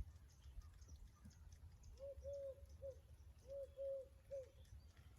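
A bird calling faintly: two phrases of three low, hooting notes each, the middle note of each phrase the longest.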